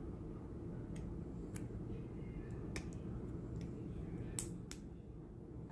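Sharp little clicks and snaps, about six spread unevenly, the loudest about two-thirds of the way through, as fingers pry a Disney MagicBand's flexible circuit board away from its black plastic casing.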